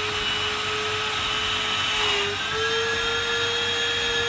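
Small electric vacuum pump running with a steady, high whine, a bit noisy, drawing the air out of a vacuum storage bag. Its pitch dips briefly about two seconds in, then settles a little higher.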